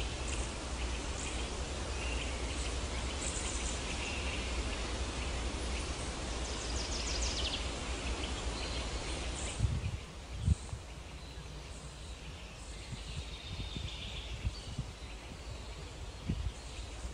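Outdoor ambience: small birds chirping over a steady rushing hiss. About ten seconds in the hiss drops away, leaving quieter bird calls and a couple of low thumps.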